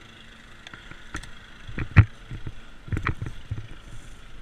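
Footsteps on rough ground: irregular, uneven steps with a louder one about two seconds in.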